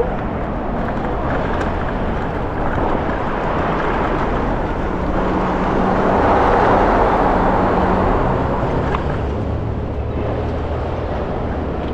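Steady road traffic noise from cars on the adjacent roadway, growing louder around the middle while passing through a road underpass.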